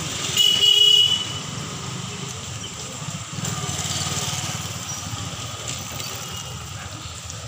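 Street traffic: motorcycle engines running, swelling as one passes near the middle, with a short high-pitched horn beep about half a second in.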